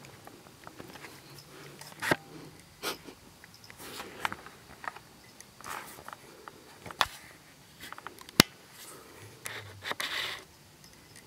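Scattered light taps, knocks and rustles of a cat stalking and pawing at a moth in a small room, with the sharpest knock about eight seconds in and a short rustling burst near the end.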